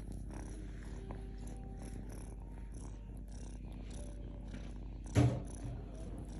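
A cat purring steadily, with a single loud thump about five seconds in.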